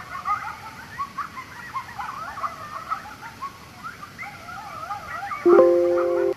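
A group of coyotes yipping and howling together, many wavering calls overlapping. About five and a half seconds in, a loud steady tone starts suddenly and cuts off abruptly about a second later.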